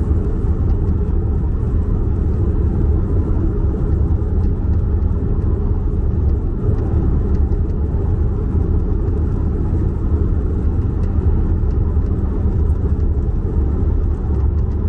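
Steady tyre and road rumble inside the cabin of a moving Skoda Kodiaq, with faint scattered light ticks. These ticks are the fine rattle and squeak of the plastic door-handle trim over slightly rough asphalt.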